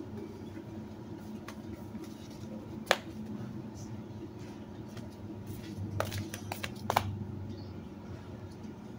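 A steady low hum with a few sharp clicks or knocks: one about three seconds in and a quick cluster between six and seven seconds.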